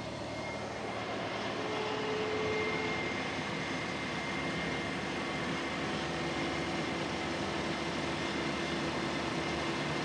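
A Toyota Corolla's 1.8-litre four-cylinder engine idling with the A/C on maximum, a steady drone with a faint constant whine, while R-134a refrigerant is being charged into the system through the low side.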